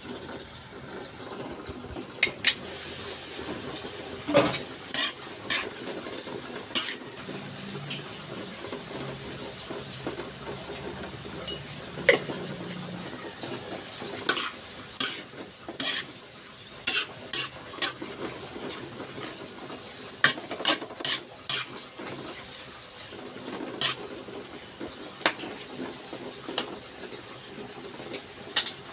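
Sliced bitter gourd, tomato and onion sizzling in a wok while a spatula stirs and tosses them, with frequent sharp clacks of the spatula against the wok.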